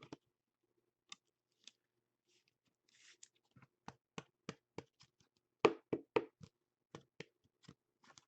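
Trading cards being handled on a table: faint light taps and clicks as cards are flipped through and set down, sparse at first, then a quicker run of about three a second from the middle on, with a brief soft rustle near three seconds in.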